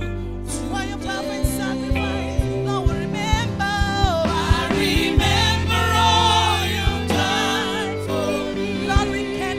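Women singing a gospel worship song together into microphones, a lead voice with a wavering vibrato over backing voices, accompanied by a band with a steady bass line and regular drum hits.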